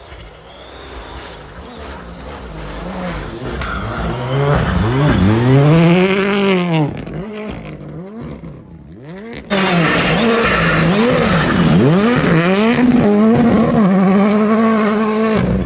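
Rally car engine revving hard, its pitch climbing and dropping again and again with throttle and gear changes as it grows louder. About halfway there is a sudden cut to another stretch of the engine rising and falling, which then settles into a steady note near the end.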